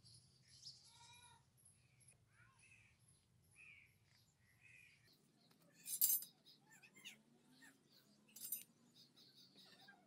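Birds chirping, a string of short calls through the first half. Then two sharp, loud scraping noises, about six and eight and a half seconds in, with lighter scratching between them.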